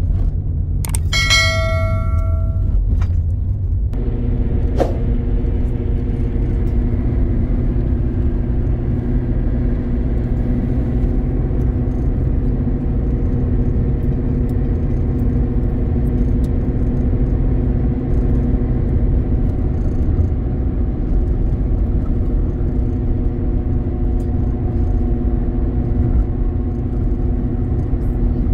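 Steady engine drone and road rumble inside the cabin of a moving Peugeot car. About a second in, a click and a short ringing chime from a subscribe-button sound effect.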